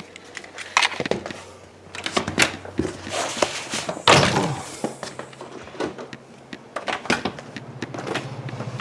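A run of scattered knocks and thuds, the loudest about four seconds in with a short ring after it. A low steady hum starts near the end.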